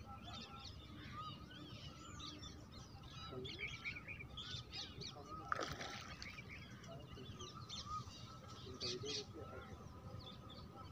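Many birds calling at once, a busy chorus of short chirps and calls. About halfway through, a single splash in the water.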